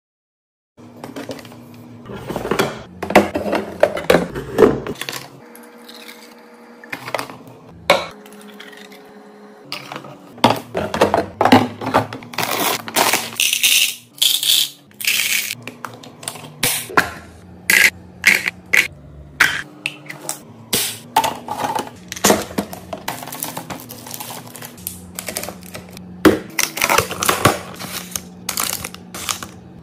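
Mini fridge being restocked: a long run of clicks, clinks and knocks as items and containers are set down and arranged, starting after a moment of silence.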